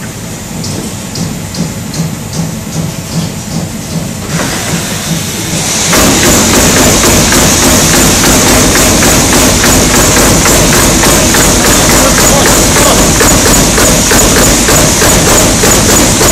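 TRUMPF TruMatic 7000 punch-laser machine working 8 mm sheet metal. Slower regular strokes come about two or three a second at first. From about six seconds it turns into a loud, rapid, even series of strokes, about five or six a second, over a steady high hiss.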